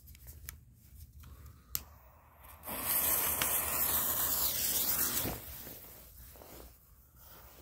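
Lit fuse of a colour smoke ball hissing as it spits sparks, loud for about two and a half seconds and then fading as the ball fills with smoke. A few sharp clicks come before it.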